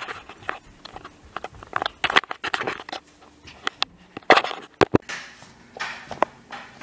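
Handling noise from a handheld camera being moved about: irregular clicks, knocks and rustling against the microphone, with the sharpest knocks a little after four seconds and near five seconds.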